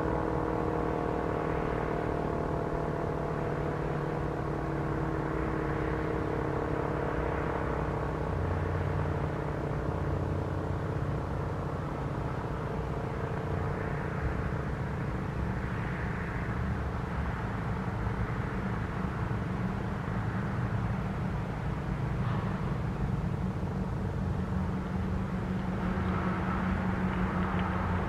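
American Signal T-135AC outdoor warning siren winding down at the end of a 3-minute alert, its falling tones sinking in pitch and fading out over the first several seconds. A steady low rumble remains after it.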